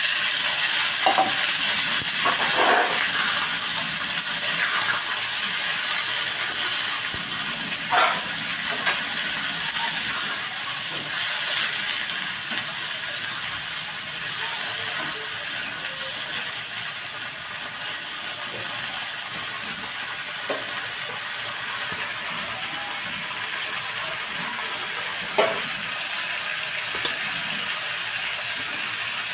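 Chickpeas frying in hot oil with browned onions in a kadhai: a steady sizzle, loudest just after they go in and easing somewhat over the first half. A metal spatula scrapes and clicks against the pan a few times as it is stirred.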